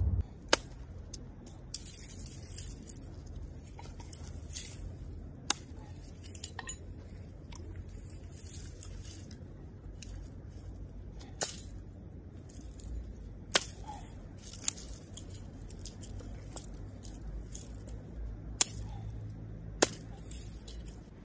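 Dry wood being broken up for firewood: a sharp crack now and then, about eight in all at irregular intervals. Under it runs a low, steady rumble of wind.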